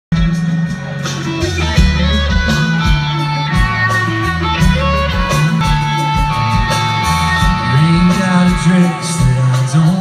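Live country band playing a song on strummed acoustic guitars, electric guitar and drums, with a steady beat.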